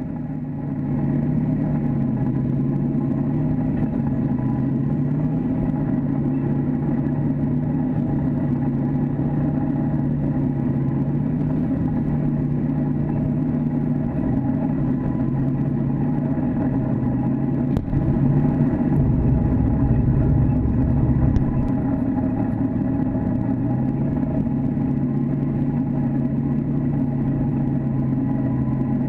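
T-72 tank's V12 diesel engine running as the tank drives forward, heard from on the hull. Its low note steps up and down between two pitches, with a brief click about two-thirds through followed by a few seconds of louder low rumble.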